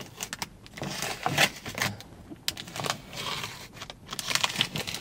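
Protective plastic wrap being pulled and crinkled off a car's rear-view mirror: irregular crackles and rustling.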